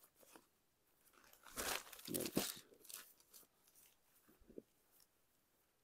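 Sarees being handled, giving a few irregular bursts of rustling and crinkling that are loudest about two seconds in.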